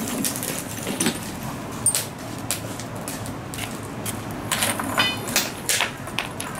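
Lumps of charcoal clinking and knocking against each other and against ceramic grill pots as they are handled, a string of irregular sharp clinks, the busiest run about four and a half to six seconds in, one with a brief ring.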